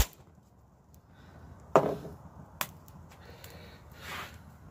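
A wood fire crackling in small steel fire pits: a few sharp, separate pops from the burning sticks and wood chunks, the loudest nearly two seconds in.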